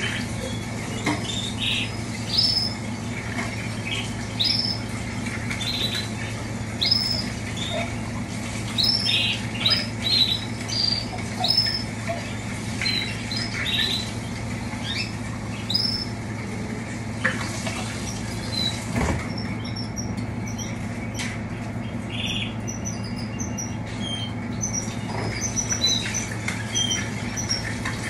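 Caged canaries chirping: many short, high call notes, several a second at times, scattered throughout over a steady low hum.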